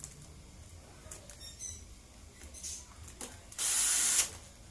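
Cordless drill-driver spinning a crankcase bolt in a motorcycle engine in one short run of about half a second, near the end, with a few light clicks of handled parts before it.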